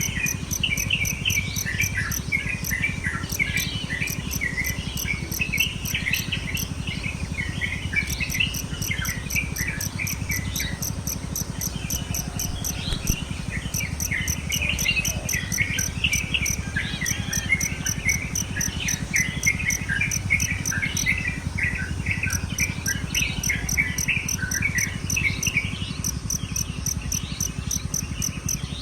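Many small songbirds chattering and calling together in a busy morning chorus, over a cricket's fast, even, high-pitched pulsing chirp that pauses now and then.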